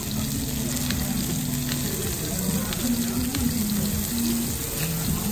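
Pork slices sizzling steadily on a round Korean barbecue grill plate, with a few light metal clicks from tongs and scissors cutting and turning the meat.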